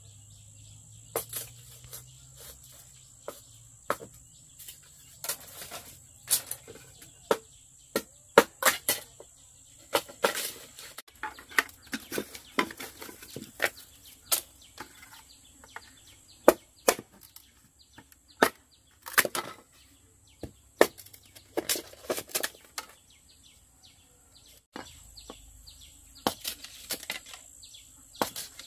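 Irregular sharp rustles and flaps, bunched in quick flurries at times and sparse at others, the scuffling of chickens being caught. A steady high-pitched whine runs underneath.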